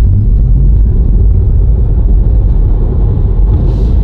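Tesla Model 3 electric car accelerating hard from a standstill, heard inside the cabin: a loud, steady low rumble of tyres and road, with a faint high whine rising in pitch in the first second or so.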